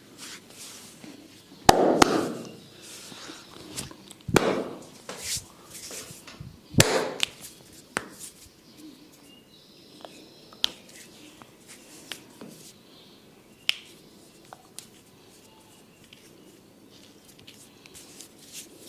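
Barber's hands working a head massage: a few loud, sharp slaps or cracks in the first eight seconds, each with a short rubbing smear, then fainter scattered taps and clicks.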